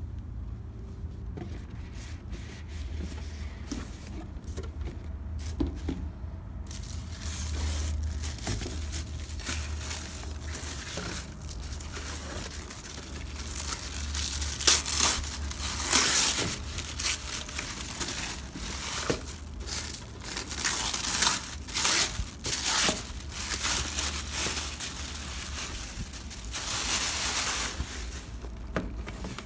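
Thin plastic bag crinkling and rustling as hands work a boxed doll out of it, loudest in a run of sharp crinkles through the middle, over a steady low rumble.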